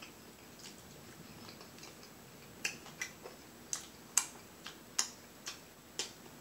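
Wet mouth smacks from sucking sauce off fingers: about nine short, sharp clicks at uneven intervals, starting a little over two seconds in.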